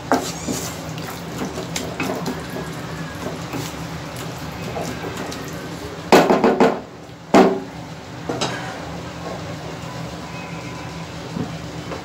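Wooden spatula stirring and scraping thick tomato-puree masala as it fries in a nonstick kadhai. A run of louder knocks on the pan comes about six seconds in, with another a second later.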